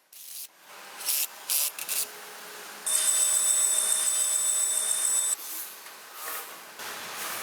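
Workshop tool noise: a few short rasping strokes, then a louder steady hiss with a thin high whine for a little over two seconds that cuts off suddenly, followed by a quieter hiss.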